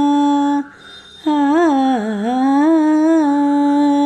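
A woman's voice singing a Tamil devotional melody without words and without accompaniment. She holds a long steady note, breaks off briefly about half a second in, then comes back with wavering ornamental bends and a dip in pitch before settling on another held note.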